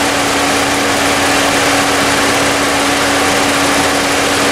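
Chevy Impala's engine idling with the air conditioning running: a steady engine-bay noise with one constant hum.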